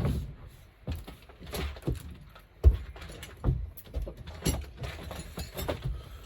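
Scattered light knocks and clicks at irregular intervals, like tools and parts being handled.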